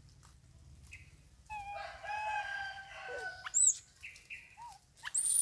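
Infant long-tailed macaque crying: a long, wavering, tonal coo starts about one and a half seconds in and lasts nearly two seconds. Short rising squeaks follow, then a loud, very high-pitched whistling note near the end.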